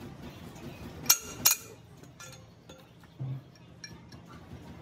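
Two sharp metallic clinks about a second in, less than half a second apart, then a few faint ticks: a steel spanner and pipe extension knocking against the bolts and housing of a Volvo excavator swing motor's gearbox.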